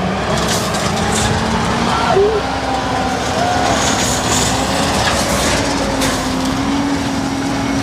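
Heavy truck engine running steadily, its drone creeping slowly up in pitch over the noise of the truck moving.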